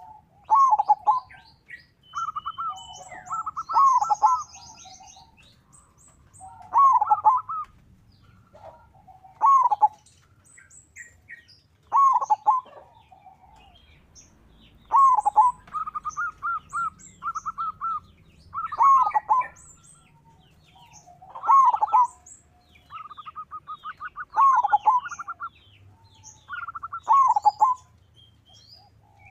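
Zebra dove (perkutut) singing: a short phrase of quick, rattling coos repeated every two to three seconds. Faint, high, quick chirps from other small birds sound between the phrases.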